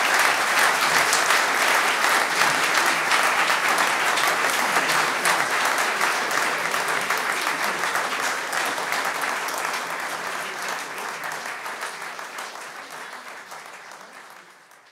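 Audience applauding, a dense steady clatter of many hands clapping that fades away over the last few seconds.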